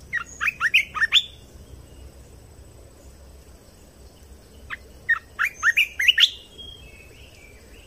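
Bulbul song used as a decoy call to draw in and excite other bulbuls: two phrases of quick, sweeping whistled notes, one at the start and another about five seconds in, each lasting about a second and a half.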